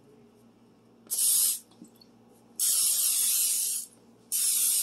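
Aerosol cooking spray hissing from a can in three bursts, short, long, then short, as a metal loaf pan is greased.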